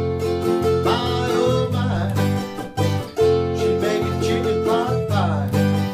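Acoustic guitar music in a country style: strummed chords over changing low notes.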